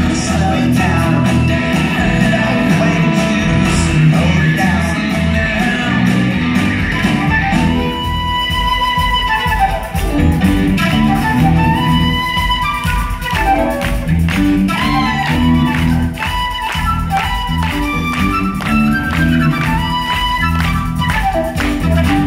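Live rock band playing through a hall PA: drums, electric guitar and keyboard. From about a third of the way in, a flute takes the lead with held notes over the band.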